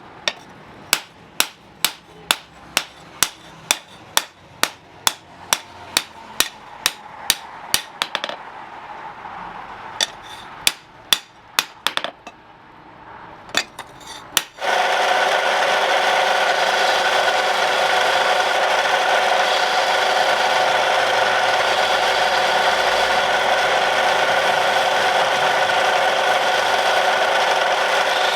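Hand hammer striking steel on an anvil, about two blows a second, with a short pause and a few last blows. About halfway through a power grinder starts and runs steadily, loud and even, with a whining tone.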